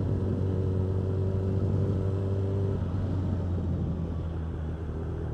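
Suzuki Bandit motorcycle's inline-four engine running through an Ixil aftermarket exhaust, a steady deep note whose pitch shifts about three to four seconds in.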